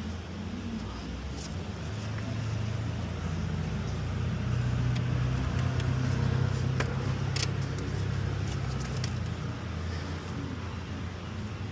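A steady low mechanical hum, like a running engine or motor, that swells slightly through the middle, with scattered light clicks and clinks over it.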